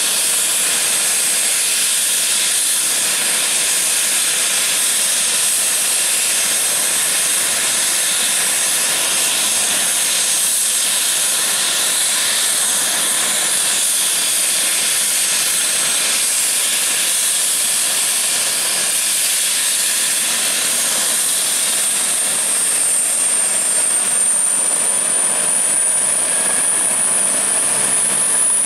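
Airbus H145 helicopter's twin turbine engines running during start-up: a steady hissing turbine whine with the main rotor turning. A high whine rises in pitch over the last several seconds as the engines spool up and the rotor gathers speed.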